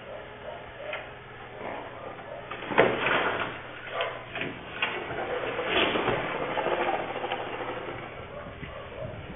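Car crashing into a roadside waste container: a sudden loud bang about three seconds in, followed by several seconds of knocking and clattering.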